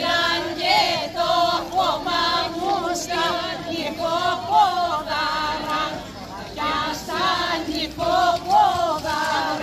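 A group of villagers, mostly women's voices with some men, singing a traditional Greek Easter dance song together without clapping, in sung phrases with short breaks between them.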